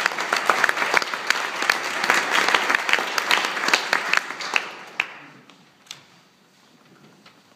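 Audience applauding, the clapping thinning and dying away about five seconds in.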